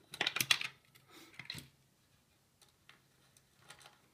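Small screws and the plastic cover plate over a diffuser's ceramic disc being worked loose and lifted off by hand. There is a burst of clicks and rattles in the first second, a smaller rattle a second later, then a few light ticks.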